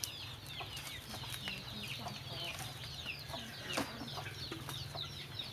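Chickens with chicks: a constant run of short, high, falling peeps, with an occasional lower cluck.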